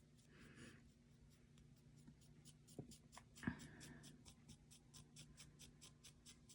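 Faint rhythmic scratching of a cotton swab rubbing Brasso polish on a brass padlock, about five strokes a second, with a couple of soft taps about three seconds in.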